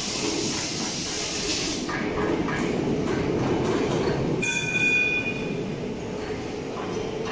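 Factory workshop machinery noise: a steady mechanical rumble with a hiss that stops about two seconds in. About four and a half seconds in there is a brief high metallic squeal lasting about a second.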